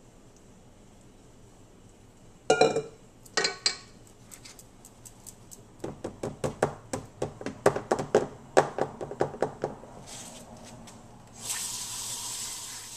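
Quick knocks and scrapes of a utensil against a metal loaf pan as banana bread batter is worked into it: two short clusters, then a longer run of rapid knocks. Near the end a hiss lasts about two seconds.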